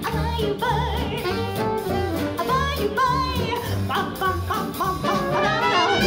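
Swing jazz band playing: saxophones and trombone over piano, upright bass, guitar and drums.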